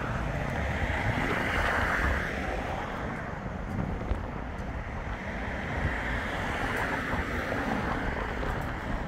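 Seaside wind gusting on the microphone over a steady rush of wind and surf, swelling about two seconds in and again a few seconds later.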